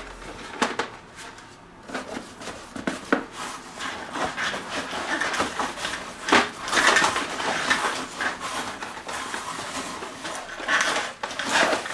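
Rustling and rubbing of a fabric bag and the folded parts of a collapsible camping toilet being packed away by hand, with scattered light knocks and one sharper click about six seconds in.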